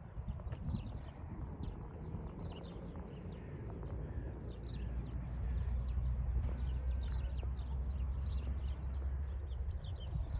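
Many birds chirping continuously over a low outdoor rumble that grows louder through the middle.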